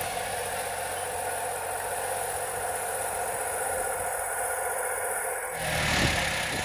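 A 1962 Lamborghini 5C TL crawler tractor's engine running at low speed as the tractor creeps along, growing briefly louder about six seconds in.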